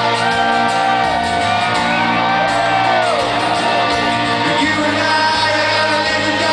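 Live rock band playing, with a voice holding one long sung note that slides down about three seconds in, and audience shouts over the band.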